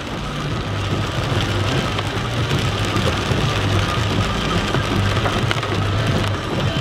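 Heavy typhoon rain pouring down onto a flooded street, with a low engine hum from vehicles driving through the floodwater.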